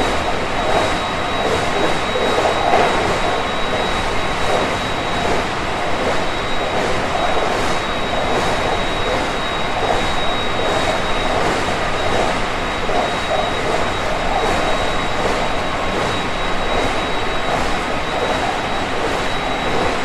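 Running noise inside a JR 223 series 5000-subseries electric multiple unit, which has Mitsubishi IGBT inverter control, travelling at speed: a steady rumble of wheels on rail with a thin, steady high tone above it.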